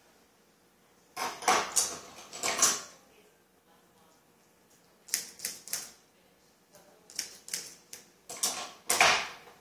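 Grooming scissors snipping through a Yorkshire Terrier's coat in short runs of quick, crisp snips: one run about a second in, a brief one around five seconds, and a longer one near the end.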